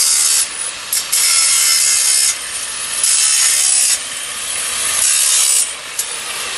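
Bench-mounted power saw cutting reclaimed pallet boards: about four loud cuts of roughly a second each, with the saw running on more quietly between them.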